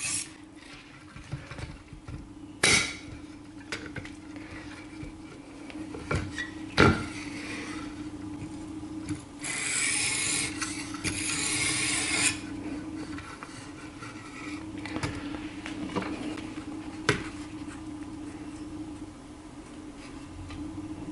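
Knife edge scraped along a coarse 800-grit diamond sharpening plate, raising a burr. Scraping strokes run for about three seconds near the middle, with a few sharp metallic clicks and knocks scattered around them and a steady low hum underneath.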